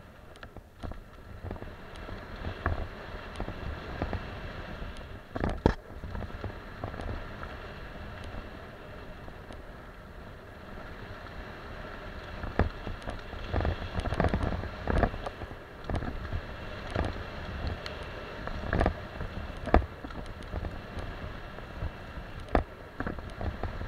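A mountain bike going fast down a dirt singletrack trail. Wind buffets the helmet or bike camera's microphone and the tyres rumble over the dirt, with sharp knocks and rattles from the bike hitting bumps, the loudest about five seconds in and a cluster in the second half.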